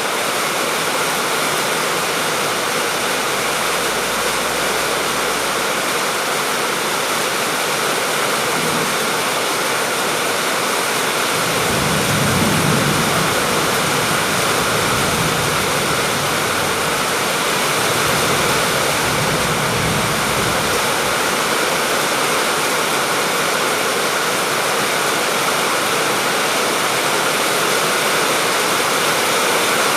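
Steady heavy rainfall, an even wash of falling water with no break, swelling softly and low about twelve seconds in and again near twenty seconds.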